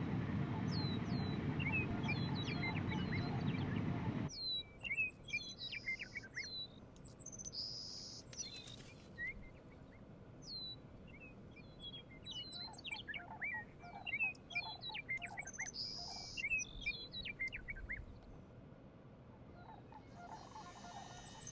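Several birds singing and chirping: many short notes and falling slurred whistles, with a few short buzzy notes. For about the first four seconds a loud low rumble lies under them, then it cuts off suddenly.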